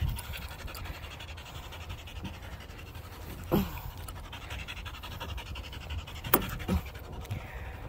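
A dog panting, with a short sharp knock a little over six seconds in.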